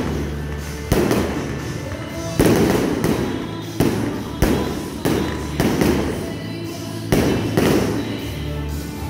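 Aerial firework shells bursting, a sharp bang every second or so, each trailing off in an echo, with music playing underneath.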